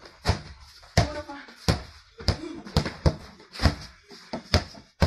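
A rubber basketball being dribbled on a concrete court, bouncing about once every two-thirds of a second, with children's voices faintly in between.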